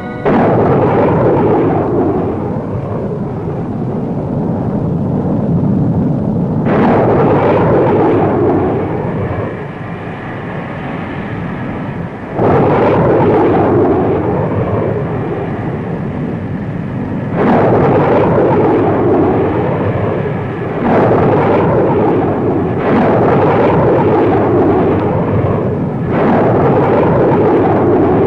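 Jet aircraft engines roaring in a series of loud surges, each one starting abruptly, about six times over the span.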